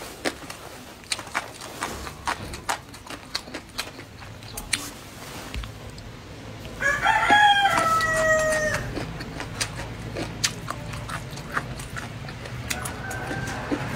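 Close-up chewing and mouth sounds with many small sharp clicks. About seven seconds in, a rooster crows once in the background for about two seconds, the loudest sound, its pitch sliding down at the end.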